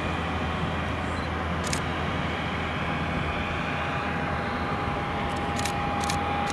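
Bombardier CS300 airliner's Pratt & Whitney PW1500G geared turbofans at takeoff thrust during the takeoff roll: a steady jet rumble with a steady whine that grows stronger in the second half.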